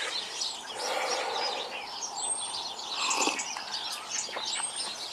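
Small birds chirping and singing, many short high calls overlapping, with a few thin whistled notes sliding in pitch.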